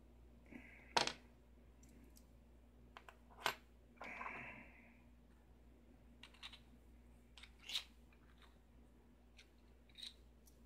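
Small metal clicks and taps from tweezers and Euro cylinder lock parts being handled on a tabletop during assembly, with three sharper clicks standing out and a brief scrape about four seconds in.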